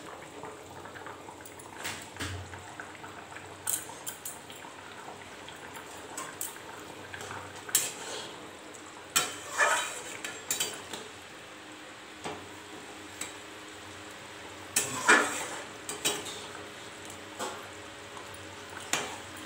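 Long metal spatula stirring a fish curry in an aluminium kadai, giving irregular scrapes and clinks of metal on metal, the loudest cluster about three-quarters of the way through.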